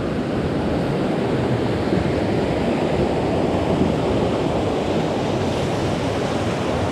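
Steady rush of the North Fork of the Wallace River flowing over rocks.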